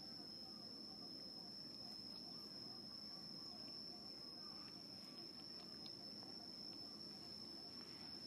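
Faint, steady high-pitched insect trill, one unbroken tone, over low outdoor background hiss.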